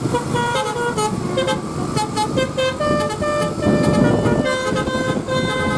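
Indonesian bus 'telolet basuri' multi-tone musical horn playing a quick tune of short notes that step up and down in pitch, over the noise of road traffic, with a louder rumble about four seconds in.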